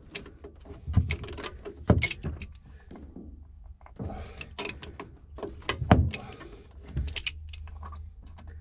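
Hand tools and small metal parts clinking and clattering irregularly, with several sharper knocks, while seized broken studs are being extracted from a marine diesel engine.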